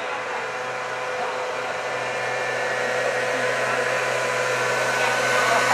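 Motor scooter engine running as it rides up the road, getting steadily louder as it comes close.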